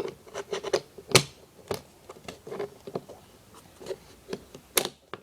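Small parts of a P-23 CO2 BB pistol clicking and scraping as the hammer spring is worked into place by hand: irregular light clicks throughout, with sharper clicks about a second in and near the end.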